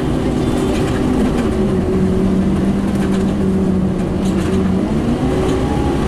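Scania N230UD double-decker bus's diesel engine working hard, heard from inside the passenger saloon. Its note dips slightly and holds steady, then rises again near the end, with light clicks and rattles over it.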